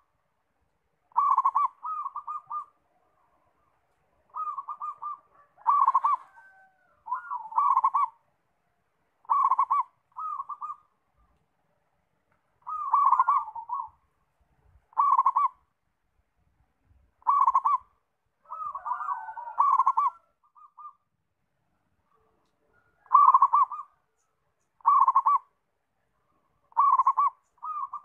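Zebra dove (perkutut) cooing: short, clipped coo phrases every second or two, with a few longer, rolling phrases in between.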